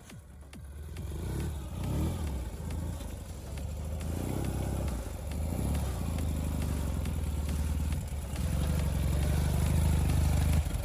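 Ural sidecar motorcycle's flat-twin engine running under load, its revs rising and falling several times and highest over the last couple of seconds.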